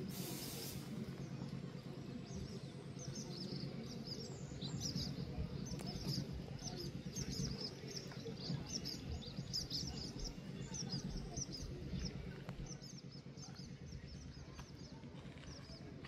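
Small birds chirping: many short, high chirps in quick runs that thin out near the end, over a low steady background rumble.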